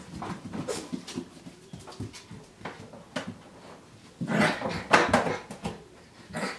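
Puppies at play, giving small whimpers and growls that are loudest about four to five and a half seconds in, among light knocks and scratches as they clamber over a plastic laundry basket.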